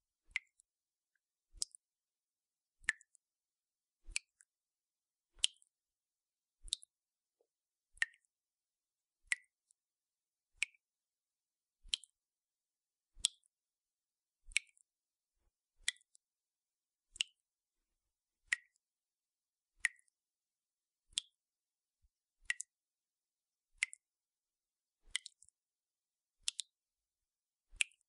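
Water dripping from a tap, one drop about every 1.3 seconds in a steady, even rhythm. Each drop is a short, sharp plink, with near silence between drops.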